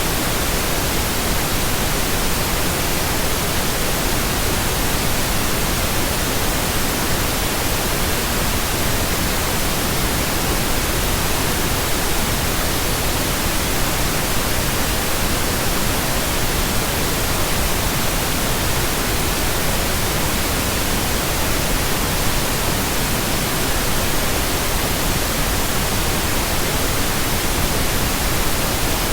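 Steady synthetic pink noise: an even, unchanging hiss across all pitches.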